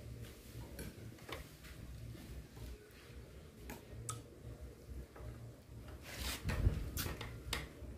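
Close-up eating sounds of a person chewing sticky rice and boiled beef tendon: scattered small clicks and smacks of the mouth. They are busiest and loudest from about six to seven and a half seconds in.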